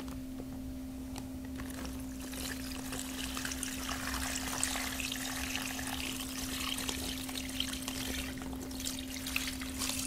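Brine being poured from a stainless steel bowl into a plastic bag holding a whole chicken: a steady pouring trickle of liquid that builds up a second or two in. A steady low hum runs underneath.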